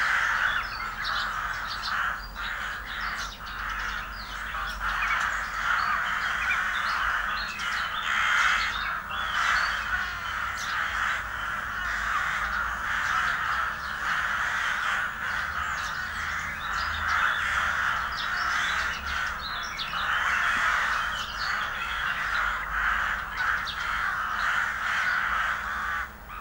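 A large flock of birds calling continuously, many harsh calls overlapping into a dense chorus.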